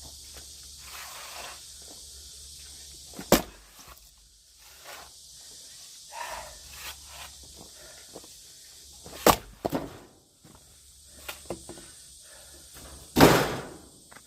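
Firewood being split with an axe: three hard strikes a few seconds apart, the last one longer as the wood cracks apart, with lighter knocks of wood in between.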